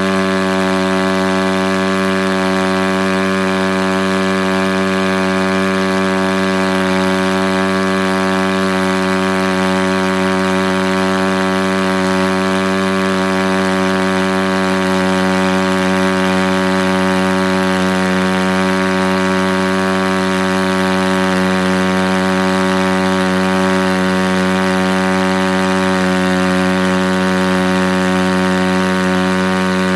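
SSR 110 pit bike's single-cylinder four-stroke engine held at a steady, unchanging pitch under throttle while the rear tire spins on the asphalt in a stationary burnout.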